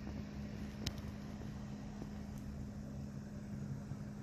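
Steady low machine hum over a faint background rumble, with a single sharp click about a second in.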